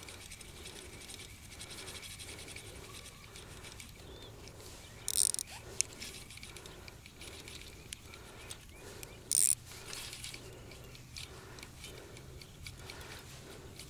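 Spinning reel being cranked under load from a hooked fish on thin 0.20 mm line, its gears turning with a soft rhythmic whir. Two short, louder high-pitched buzzes cut in, about five and nine seconds in.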